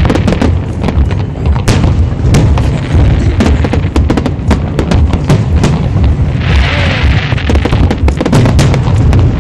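Aerial fireworks bursting in rapid succession: a dense run of booms and sharp bangs over a continuous heavy rumble, with a stretch of hiss about seven seconds in.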